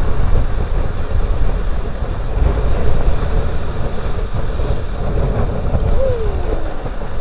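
Ocean surf breaking and washing over rocks, with strong wind buffeting the microphone in a deep, gusty rumble.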